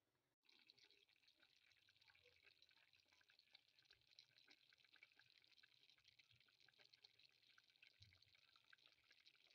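Pot of potatoes, peas and chopped greens simmering in their liquid: a faint, steady crackle of many tiny bubbles popping.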